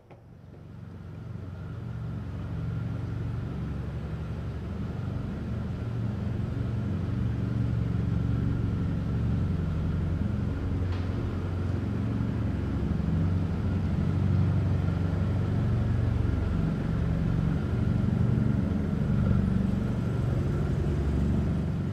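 Car driving in, its engine a steady low rumble that fades in over the first two seconds.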